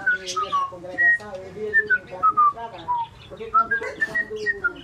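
Cockatiel whistling a run of clear notes that slide up and down, one after another, over softer chirping and chatter from other cage birds.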